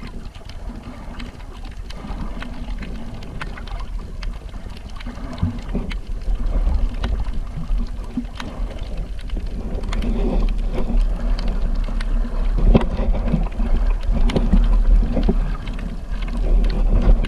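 A boat under way on the sea: a steady deep engine rumble with wind buffeting the microphone and water splashing, growing louder from about the middle on.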